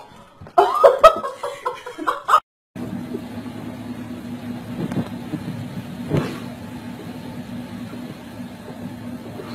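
A second and a half of loud, pitched cries, then a cut to a car's steady engine and road drone with a low hum and a single bump about six seconds in.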